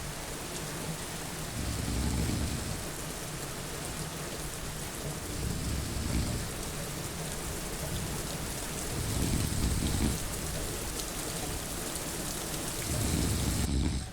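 Steady heavy rain, with a low snore swelling and fading about every four seconds. The rain's hiss cuts off abruptly near the end.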